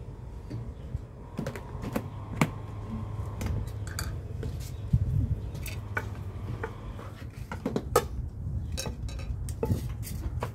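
Wooden pestle knocking in a clay mortar while papaya salad is pounded and mixed: a run of irregular sharp knocks and clicks, the loudest about two and a half, five and eight seconds in.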